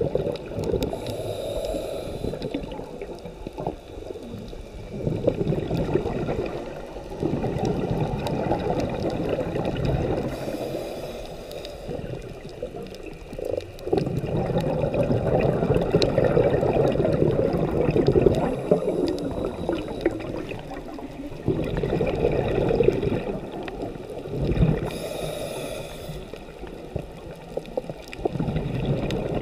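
Scuba breathing heard underwater through a diver's regulator. Long stretches of bubbling exhalation alternate with four short hissing inhalations, spaced several seconds apart.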